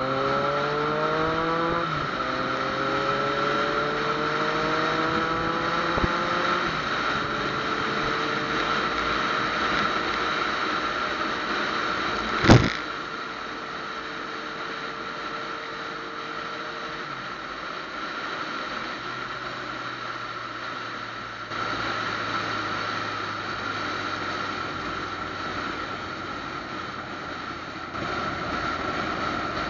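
Yamaha FZ-09's three-cylinder engine accelerating through the gears, its pitch rising and then dropping at an upshift about two seconds in and again around six to seven seconds in, then running steadily at cruising speed with road and wind noise. A single sharp knock about twelve seconds in is the loudest sound.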